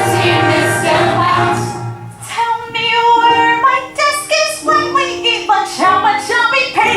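A group of voices singing a musical-theatre number with accompaniment. There is a short dip about two seconds in, then a run of separate held notes.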